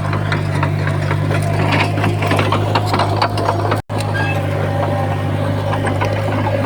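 Heavy diesel earthmoving machine running under a steady low drone, with continual metallic clanking and rattling over it. The sound cuts out for an instant about four seconds in.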